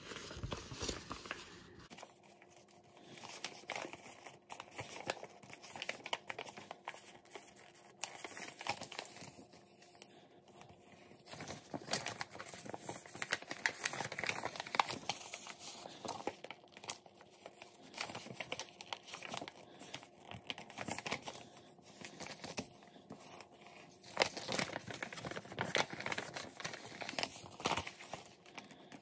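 A sheet of US letter paper being folded and creased by hand: irregular crinkling and rustling, with short sharp crackles as creases are pressed in.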